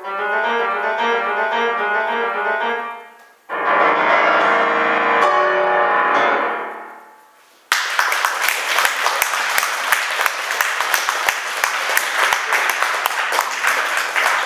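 Seiler grand piano playing the closing bars, then a loud final chord struck about three and a half seconds in that rings and dies away. Near the middle, applause starts suddenly and carries on.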